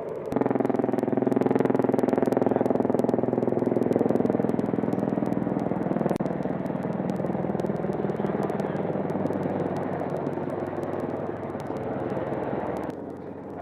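AH-64 Apache helicopter turbine and rotor noise, steady and dense, heard through the aircraft's radio or intercom. It jumps up abruptly just after the start and drops back abruptly near the end, as the channel opens and closes.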